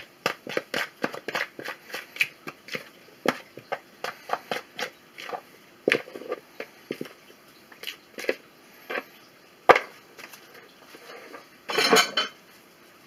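Spatula scraping risen bread dough out of a mixing bowl: a run of short scrapes and taps against the bowl, with a louder clatter near the end.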